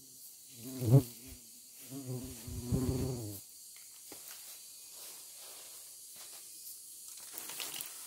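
A flying insect buzzing close by, twice: a short pass about a second in and a longer one from about two to three and a half seconds, over a steady high hum of forest insects.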